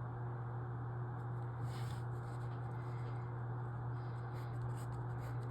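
Faint, intermittent scratching of a pen writing on paper, over a steady low electrical hum.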